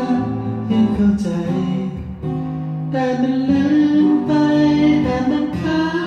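A man singing held notes while strumming a steel-string acoustic guitar.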